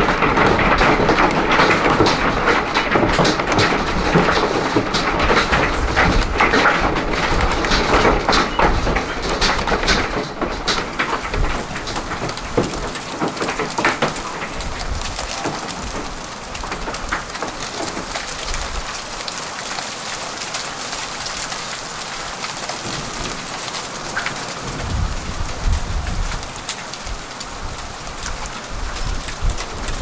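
Hailstorm: a dense clatter of hailstones and rain striking hard for about ten seconds, giving way to a softer, steady rain patter, with a low rumble near the end.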